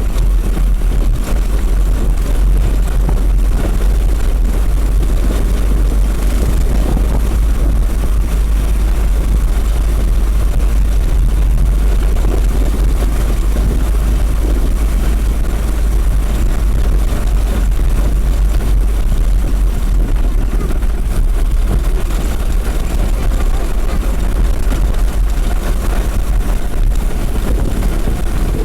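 Small go-kart engine running steadily as the kart is driven, with a constant heavy low rumble.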